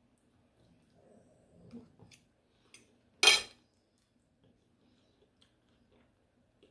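Quiet eating sounds from a person eating enchiladas with a fork: soft chewing and faint clicks, with one short, sharp, louder sound about three seconds in.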